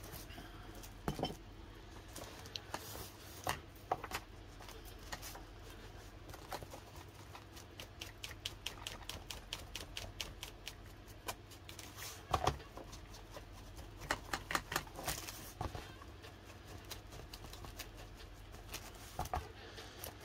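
Ink blending tool dabbing Vintage Photo distress ink onto paper edges: quick runs of light taps, several a second, densest a little past the middle.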